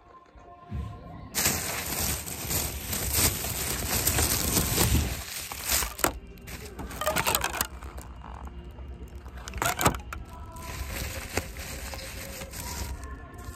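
Open-air amusement ride running along its railed track, a loud rattling rush of motion and wind, heaviest over the first few seconds, then easing with a few sharp clacks.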